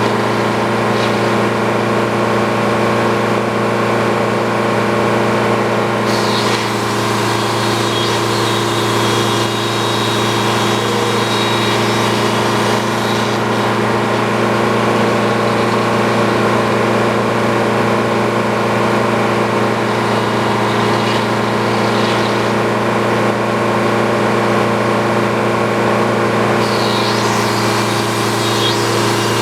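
Sawmill engine running steadily at a constant speed, with a higher, hissing edge that comes in about six seconds in, fades away, and returns near the end.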